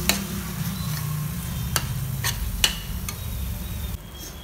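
A steel spoon stirring and scraping thick masala with yogurt in a stainless steel frying pan, with several sharp clinks of spoon on pan. The masala is frying gently over a steady low hum.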